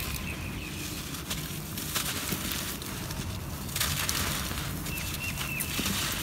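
Dry red dirt and clay lumps crumbling and crunching in bare hands, with a gritty crackle of grains and powder falling away. The sound swells about two seconds in and again near four seconds.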